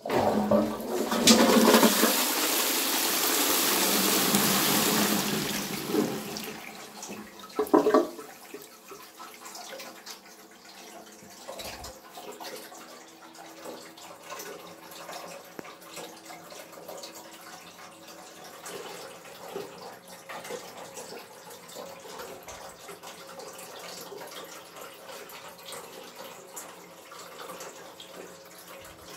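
A high-level Dudley Tri Shell plastic cistern flushing after its chain is pulled. Water rushes loudly down the flush pipe into the pan for about five seconds and fades, with a short loud surge about eight seconds in. After that comes a quieter steady hiss of the cistern refilling.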